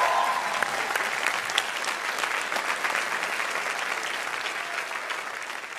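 A group of class participants clapping, with the last of some cheering at the start. The applause thins and fades away near the end.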